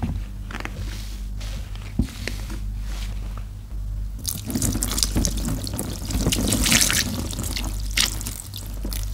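Water running and splashing into a plastic tub of sponges, starting about four seconds in and easing off near the end. Before that, soft handling clicks as sponges are set down, with one sharp click about two seconds in.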